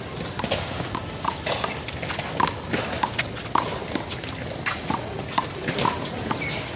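Handball rally: a small rubber ball smacked by bare or gloved hands and slapping off the wall and ground, sharp irregular cracks about two a second.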